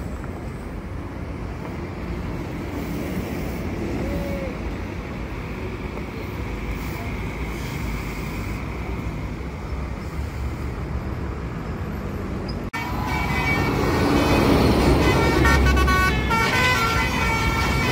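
Steady rumble of vehicles and engines, then, about 13 seconds in after a sudden break, a tour bus's Basuri telolet horn plays a tune of shifting high notes over the engine noise, louder than before.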